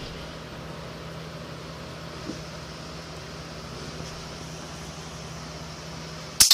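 Steady low hum and hiss, then one loud, sharp snap near the end, after which the sound cuts off almost to silence.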